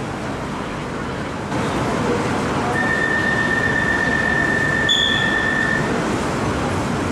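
Bangkok MRT Purple Line train standing at a station platform, its cabin noise rising about a second and a half in. A single steady electronic beep sounds for about three seconds, with a short higher beep near its end: the train's door warning tone.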